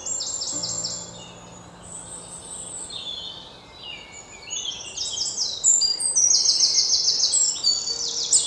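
Songbirds singing in fast, high-pitched chirping trills, several phrases overlapping, growing louder about halfway through.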